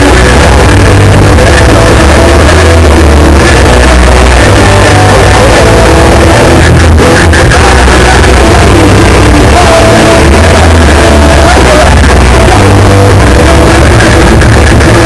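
Hardcore punk band playing live: electric guitars, bass and drums with a vocalist shouting into the microphone, very loud and unbroken throughout.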